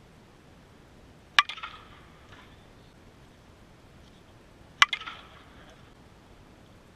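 A 2017 Louisville Slugger Super Z Balanced composite slowpitch softball bat striking softballs: two sharp cracks about three and a half seconds apart, each followed by a brief echo.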